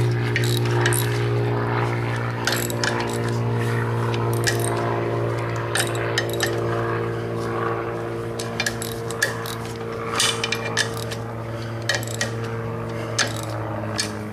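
Socket wrench clinking and scraping on the steel clutch pressure plate bolts of a VW 1600 flywheel as they are snugged down, in scattered sharp metallic clicks. Under it a steady low hum of several held tones.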